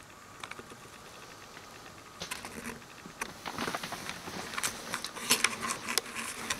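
Handling noise: rustling and irregular light clicks and taps, starting about two seconds in and getting busier toward the end.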